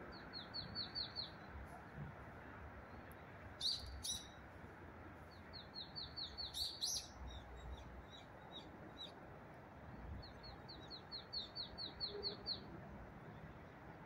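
Small woodland birds calling: three quick runs of high, rapid chirps, with a few louder, sharp single calls around the middle. A steady low hum of distant road traffic runs underneath.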